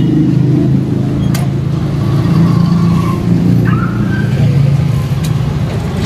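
Street traffic: a motor vehicle engine running close by as a steady low rumble, with a couple of faint clicks.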